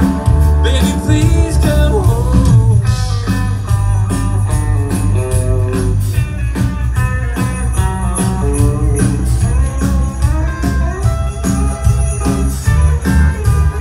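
A live band playing festive music, with jingle bells shaken on a steady beat.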